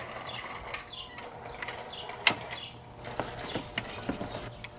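Metal clinks and knocks as a pry bar levers a replacement alternator up into its mounting bracket, with one sharp clack a little over two seconds in and a run of lighter clicks after it.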